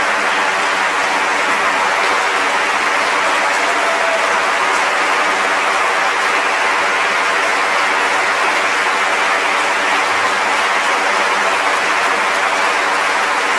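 Audience applauding steadily, a dense, even clapping that does not let up.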